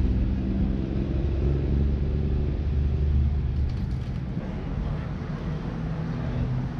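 Street traffic, with a motor vehicle's engine running close by: a low rumble, loudest for the first three seconds or so, then easing off.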